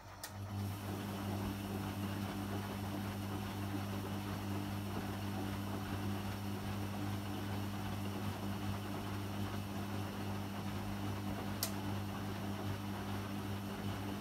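Beko BKY 2317 B front-loading washing machine mid-wash: a click, then the motor turns the drum with a steady hum while wet laundry and water slosh inside. A single sharp click comes near the end.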